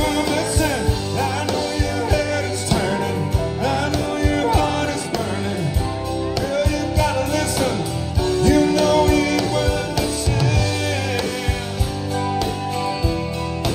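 Live country band playing a song: acoustic guitars over a steady drum beat, with a man singing lead.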